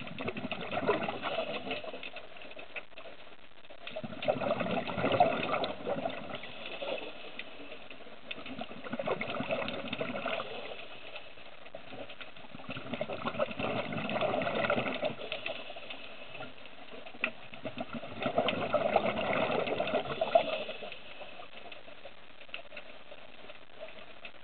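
Underwater bubbling from a diver exhaling through a scuba regulator: five gurgling bursts, each two to three seconds long, about every four to five seconds, over a steady faint crackle.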